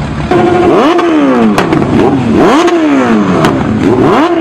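Pickup truck engine revved hard about three times, each rev climbing quickly and then falling away more slowly, with a couple of sharp cracks between revs.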